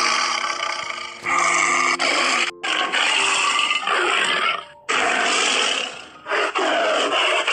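A string of loud, harsh animal calls, five or six of them, each about a second long, starting and stopping abruptly one after another.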